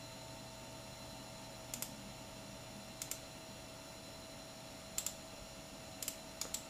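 Computer mouse clicking about half a dozen times, each click a quick double snap, spaced a second or two apart and coming faster near the end, over a faint steady hum.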